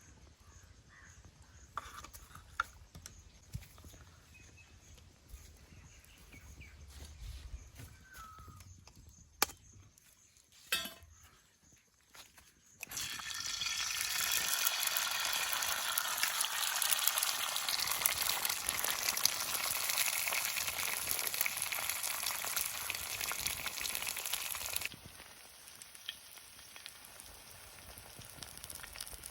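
Egg frying on a hot pan for a half boil: a few sharp taps and clicks, then loud sizzling starting about halfway through that suddenly drops to a softer sizzle near the end.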